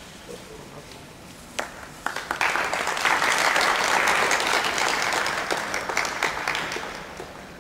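Audience applauding: a couple of lone claps about a second and a half in, then a burst of clapping that builds quickly, holds for a few seconds and dies away near the end.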